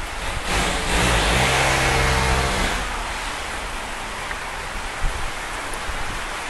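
A motor vehicle passes for about two seconds starting half a second in, its engine note falling in pitch, over a steady hiss of heavy rain.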